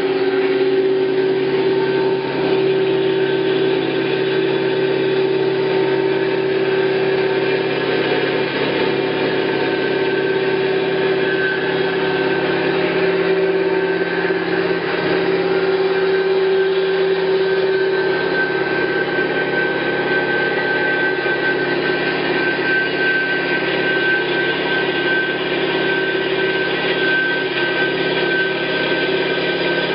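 Hyd-Mech V-18 vertical bandsaw running: a steady machine hum made up of several held tones. A higher whine grows stronger a little over halfway through.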